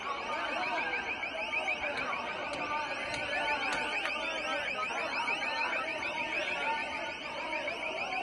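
An electronic alarm repeating a fast rising sweep, about five times a second, over the voices of a large crowd shouting.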